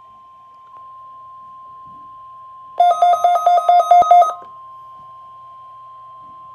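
Emergency alert tones on a NOAA Weather Radio Required Weekly Test: a steady tone of about 1 kHz, with a burst of loud, rapid electronic beeps alternating between two pitches from about three to four and a half seconds in.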